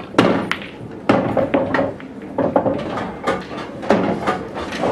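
Pool balls clacking and knocking against each other and the table: a series of separate sharp hits with duller thuds, the loudest just after the start, as the balls settle after a break-off.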